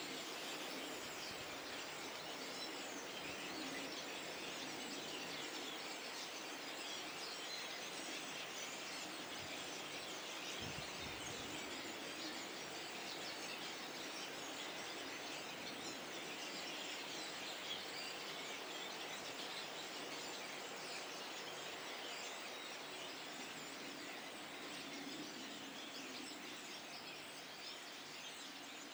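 A flock of starlings chattering: a dense, continuous mix of short chirps and whistles.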